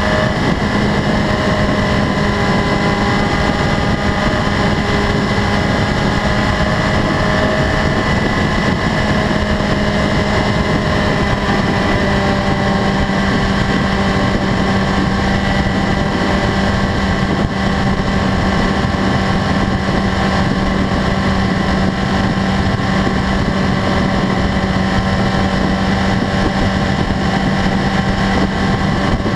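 2015 BMW S1000RR's inline-four engine running at a steady highway cruise, a constant hum with wind noise.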